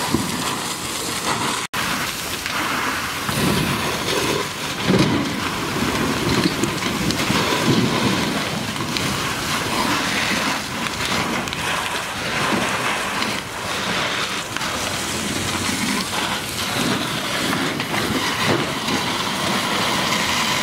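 A burning farm building being hosed down: fire hose streams spray onto the burning debris, giving a steady rushing, spattering hiss.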